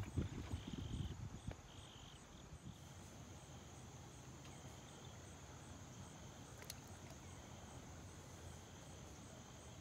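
Insects trilling steadily in the background, a continuous high buzz with a pulsing chirr a little lower. Low rumbling in the first second and a half, then only the quiet insect chorus.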